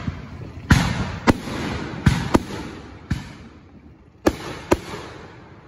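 Aerial fireworks bursting overhead: a string of about seven sharp bangs, two of them coming close together near the middle and two more near the end, each trailing off in an echoing rumble.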